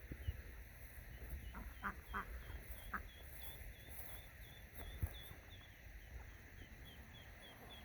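Ducklings peeping faintly in a rapid, steady series of short high notes, with a few short duck calls about two to three seconds in.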